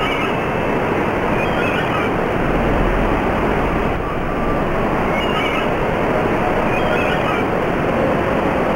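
Steady rushing noise of ocean surf.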